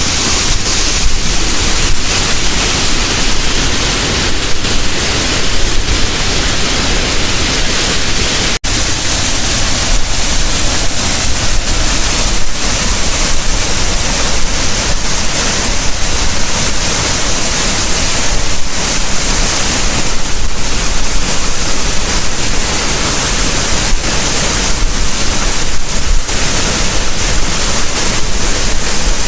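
Waterfall's steady rush of falling water, loud and unbroken apart from a short gap about eight and a half seconds in. The falls are carrying rain-fed water from heavy rain upstream.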